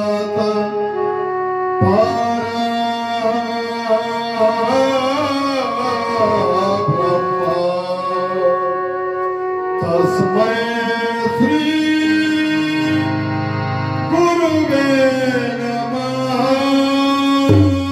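A man singing a Marathi devotional song to Vitthal in a strong voice, holding long notes that glide between pitches, over sustained instrumental accompaniment with some drumming.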